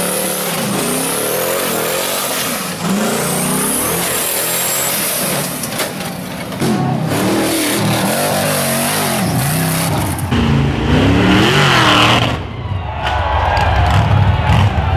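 Rock bouncer buggy engines revving hard and dropping off again over and over as they climb steep dirt hills. The sound changes abruptly several times as one run cuts to the next.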